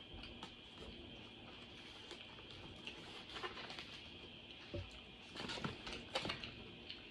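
Quiet mealtime sounds: chewing and small mouth clicks, with crackles and a soft thump as pizza slices are handled on a plate, busiest around the middle. A faint steady high whine runs underneath.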